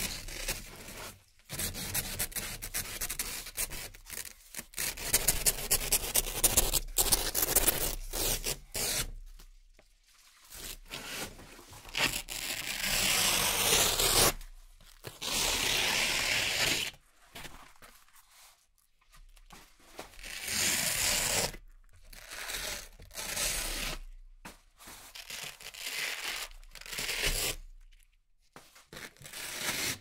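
Hook-and-loop (Velcro) strips being peeled apart, one after another: a series of crackling rips, each one to several seconds long, with short pauses between them and one long drawn-out rip about halfway through.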